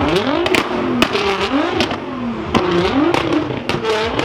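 Nissan GT-R engine revved hard again and again, about five quick rev blips, with sharp exhaust pops and cracks between them.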